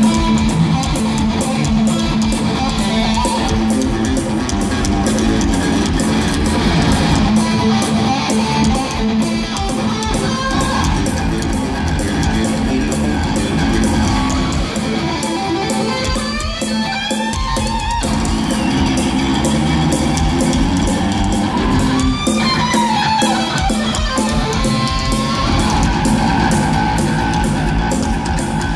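Heavy metal electric bass and a Flying V electric guitar playing live through a concert PA, loud and steady. Sliding notes glide up and down about halfway through and again a few seconds later.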